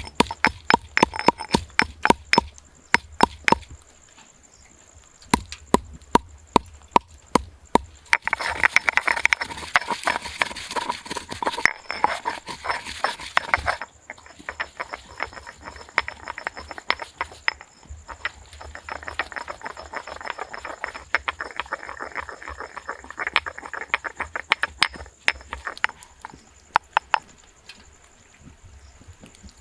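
Rapid runs of sharp knocks, several a second, on a hard surface, with pauses between runs and two stretches of a rustling, scraping noise.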